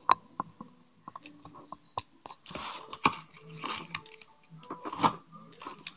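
Plastic and cardboard packaging of a doll box being handled: crinkling and crackling, with several sharp clicks.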